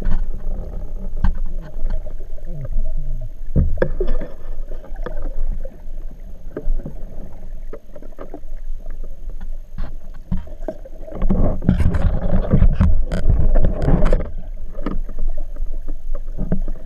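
Muffled underwater sound picked up by a camera sealed in a housing on a speargun: a constant low rumble of water moving past the housing, with scattered sharp clicks and a louder stretch of rushing noise from about eleven to fourteen seconds in.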